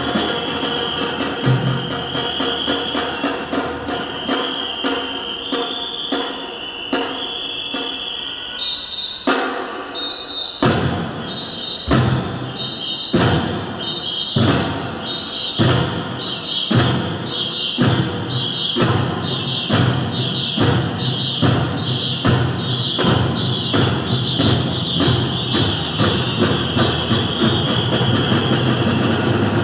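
Music with a held high tone, then a drum troupe's large drums come in about a third of the way through, striking about once a second and speeding up to a quicker, steady beat.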